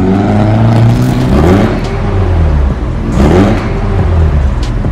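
BMW E36 318i's four-cylinder engine revved several times through a dual-tip NDK Pro Twin muffler with no resonator, the exhaust note rising and falling with each blip of the throttle.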